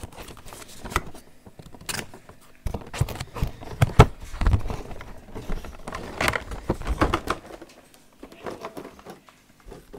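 Cardboard toy figure box being opened at its side flap and the contents pulled out: irregular rustling, scraping and knocks of packaging handling, with the sharpest knock about four seconds in and the handling quieter near the end.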